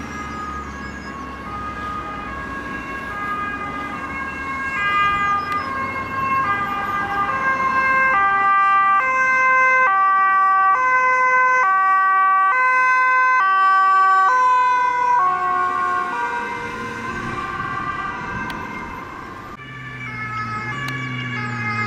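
Dutch police two-tone siren on a Mercedes-Benz B-Class patrol car, alternating high and low. It grows louder as the car approaches, then drops in pitch as it passes and fades away. Near the end a second siren and engine sound rise as a police motorcycle approaches.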